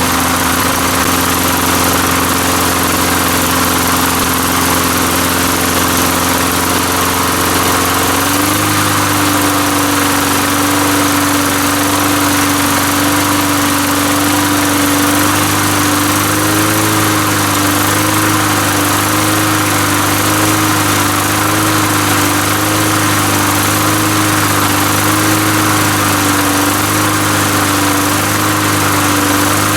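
Tecumseh small engine on a Lawn-Boy mower running steadily at full throttle after a tune-up, burning off oil that had got into it. Its speed steps up slightly about eight seconds in, then wavers a little.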